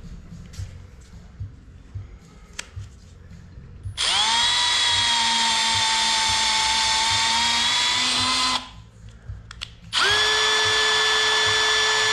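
Cordless drill running under load in two steady runs: about four and a half seconds, then a short pause and a second run at a different pitch near the end. It is working a bit into the cast-iron cylinder head along the crack, making holes for the stitching screws of a cold metal stitching repair. Light handling clicks come before the first run.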